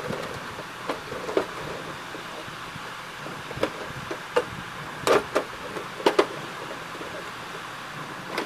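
Plastic top cover of an Epson L120 inkjet printer being fitted and pressed down onto its base: a scattered series of sharp plastic clicks and knocks, the loudest as two quick pairs about halfway through, over a steady background hiss.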